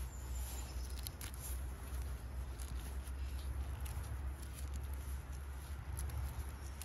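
Small oyster mushrooms being plucked and snapped off a rotting log by a gloved hand: soft crackles, clicks and rustles over a steady low rumble, like wind on the microphone.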